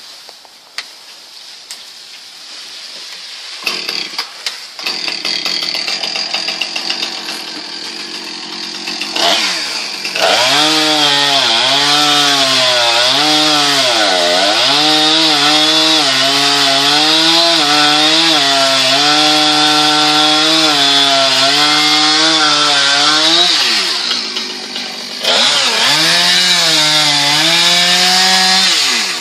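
Chainsaw running, first at low revs, then at full throttle from about ten seconds in, cutting wood with its pitch sagging and wavering under load. It drops back briefly about two-thirds of the way through, revs up again, and cuts off at the end.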